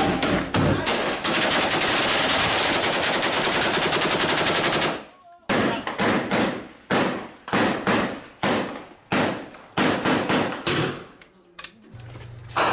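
Rifle fire: a sustained automatic burst of about four seconds, then after a short break a string of single shots about two a second, each ringing off in echo, stopping about a second before the end.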